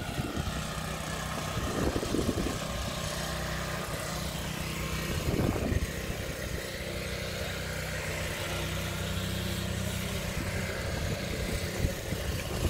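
An engine running steadily at idle, with an even, unchanging hum.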